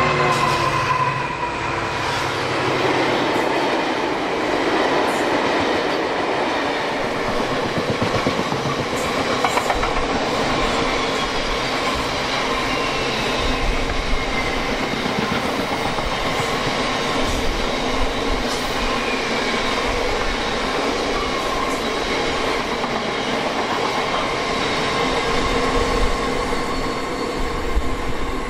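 Colas Rail Freight Class 70 diesel locomotive passing, its engine note fading within the first second or so. A long train of tank wagons then rolls past with a steady rumble of wheels on rail, scattered clicks over the rail joints and a thin steady ringing tone above it.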